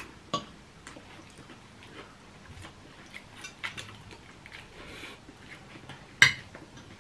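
Metal forks and spoons clinking and scraping against ceramic dinner plates during a meal: scattered light clicks, with one sharper clink about six seconds in.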